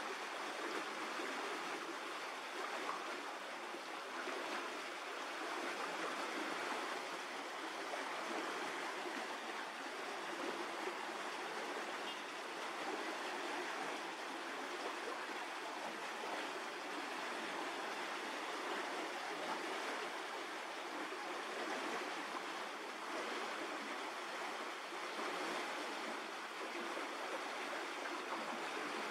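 Steady rushing background noise, even throughout, with no distinct events.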